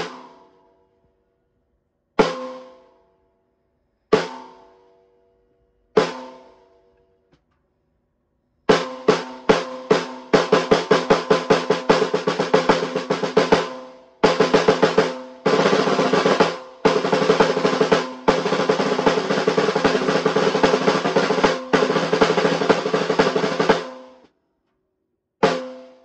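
14x6 mahogany snare drum, tuned a little high, played with sticks on the head without rim shots. Four single strokes about two seconds apart each ring out, then the strokes speed up into long rolls broken by short pauses, with one last single stroke near the end.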